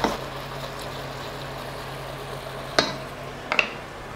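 Vegetables and teriyaki marinade sizzling and simmering in a hot wok, stirred with a wooden spoon that knocks against the pan a few times, sharply near the end.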